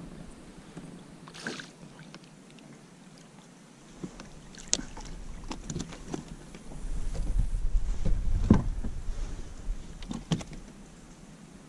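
Clicks and knocks of hands and fishing gear handled on a plastic kayak, over a low rumble that swells in the middle; the loudest knock comes about eight and a half seconds in.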